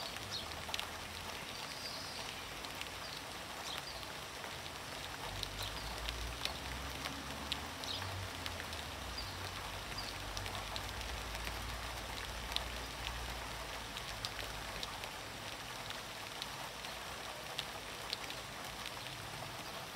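Rain falling steadily onto a shallow puddle of standing water, with many individual drops ticking as they splash.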